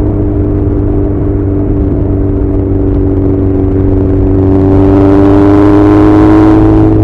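Honda CB1100's air-cooled inline-four running through an Arrow full exhaust system, ridden at a steady pace. About four and a half seconds in, the throttle opens: the exhaust note rises slightly in pitch and grows louder and fuller.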